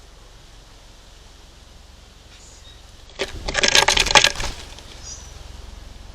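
Birds scuffling on a feeder: a sudden burst of rapid clattering about three seconds in, lasting about a second and a half.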